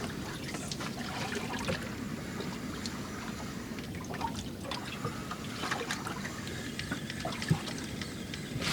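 Water lapping and trickling against the hull of a drifting boat, with small scattered splashes.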